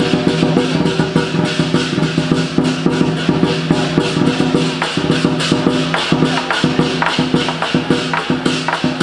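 Lion dance percussion: a large drum beaten in fast, even strokes with cymbals clashing, over steady ringing tones.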